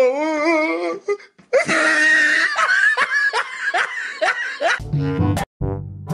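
A wavering, wailing voice, then laughter over music, then a low buzzy fart sound effect that starts about five seconds in.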